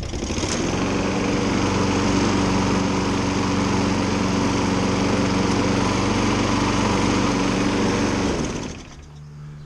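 Briggs & Stratton 6.75 hp lawn mower engine starting up, running steadily for about eight seconds, then shutting off and winding down. It runs while the self-propel drive is tried, which does not engage because the drive belt is stretched out.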